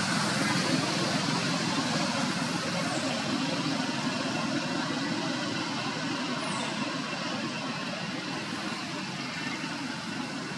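Steady outdoor background noise with no distinct events, easing slowly in level.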